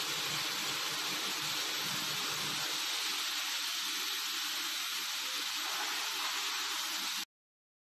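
Spiral tube forming and welding machine running, a steady hissing machine noise as the spiral-seamed steel pipe is formed and fed out. It cuts off suddenly about seven seconds in.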